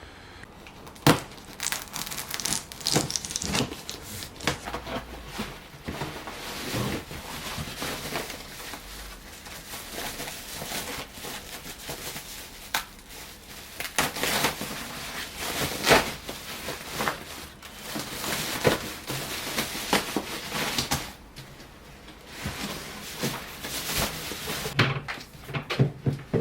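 Handling noise from soft motorcycle panniers and their fittings: continual rustling and crinkling broken by scattered sharp clicks and knocks, the loudest about a second in and again midway.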